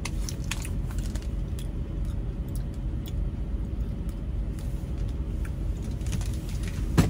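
Semi truck's diesel engine idling, a steady low rumble inside the cab, with scattered small clicks and rattles and one sharp knock about seven seconds in.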